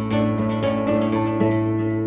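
Background music of plucked strings, guitar-like, with sustained notes.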